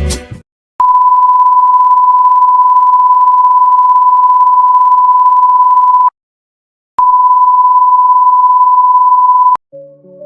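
Steady electronic beep at a single pitch of about 1 kHz, like a test tone or censor bleep. A long beep of about five seconds stops, and a shorter one of about two and a half seconds follows after a pause of about a second. The tail of a song ends just before the first beep, and soft sustained keyboard music fades in near the end.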